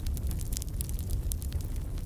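Wood fire burning with a low steady rumble and many small, quick crackles and pops.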